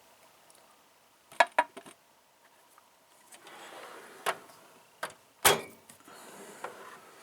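Hand tools being handled in a toolbox: scattered sharp clicks and clinks of metal, the loudest about five and a half seconds in, with a soft rustle in the middle.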